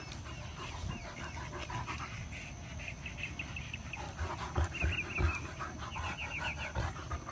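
A dog panting, in several quick runs of short breaths.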